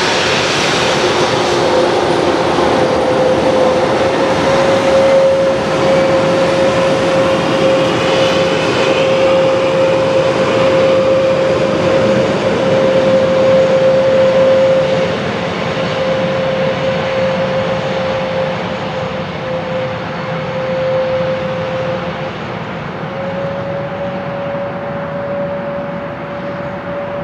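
Jet engines of an Airbus A321neo airliner: a dense roar with one steady humming tone through it, slowly fading and losing its hiss as the aircraft moves away.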